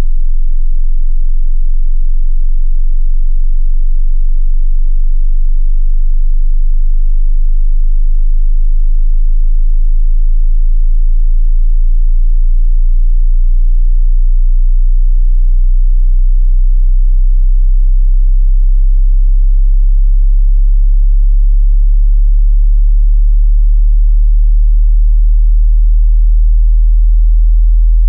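A pure sine test tone in the deep bass, below about 50 Hz, held at constant strength and slowly rising in pitch: the low end of a hearing-test frequency sweep.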